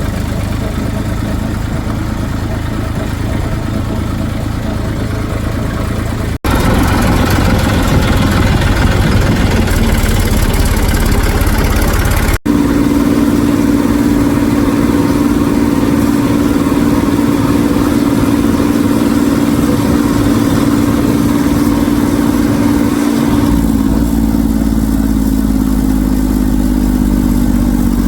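Diesel engines of heavy machinery, a backhoe loader and tractors, running steadily in three stretches split by abrupt cuts. In the last stretch a steady engine note slowly drops in pitch near the end.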